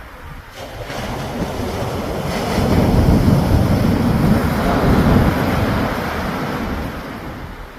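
Sea surf: a wave builds, crashes and washes in, swelling to its loudest in the middle and fading again, with wind rumbling on the microphone.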